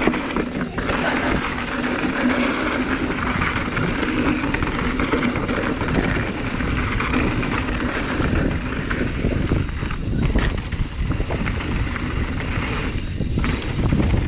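Mountain bike descending a loose dirt and rock trail: wind buffeting the microphone, tyres rolling over loose ground, and the bike rattling with many short knocks over the bumps.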